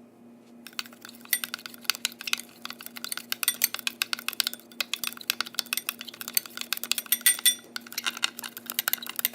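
A utensil stirring dry spice seasoning in a bowl, clinking rapidly and unevenly against the bowl from about a second in, over a steady low hum.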